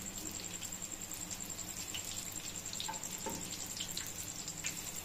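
Hot oil sizzling gently in a frying pan, with many fine crackles, as flour-slurry-coated bread sandwiches shallow-fry on a low-medium flame.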